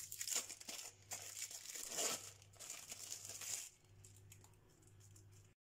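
Baking paper crinkling and rustling on a tray as a hand presses down the crumb-coated potato patties. The rustling is strongest in the first three and a half seconds, then fades to a faint rustle over a steady low hum.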